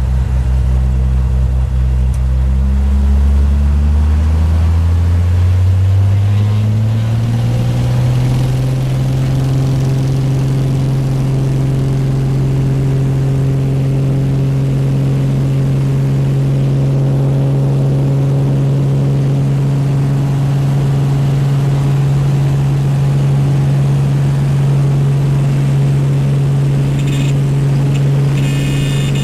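Light bush plane's piston engine and propeller coming up to takeoff power, rising in pitch over the first several seconds, then holding a steady full-power drone during the takeoff run and climb.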